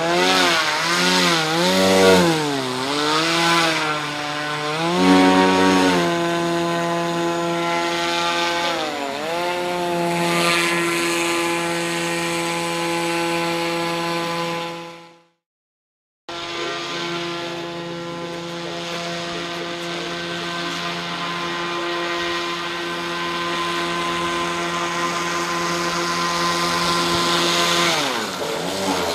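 Homemade RC airboat's NTM PropDrive 50-60 brushless outrunner motor driving an APC 7x8 air propeller: a loud whine whose pitch rises and falls with throttle changes over the first few seconds, then holds mostly steady. It fades away about 15 seconds in, cuts back in a second later, and the pitch drops near the end as the throttle comes off.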